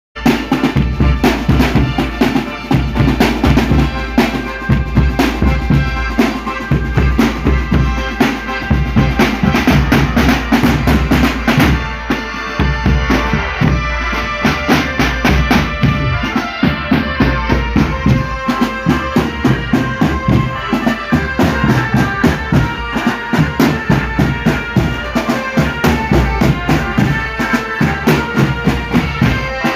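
Marching band playing an instrumental intro: a driving, evenly repeating drum and percussion beat with a melody over it.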